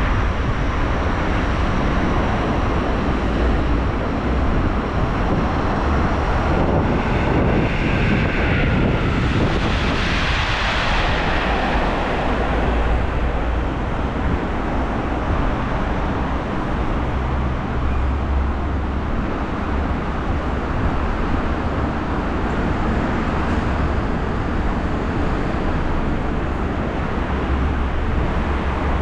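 Steady road traffic noise, with one vehicle passing close about ten seconds in, its sound swelling and then fading.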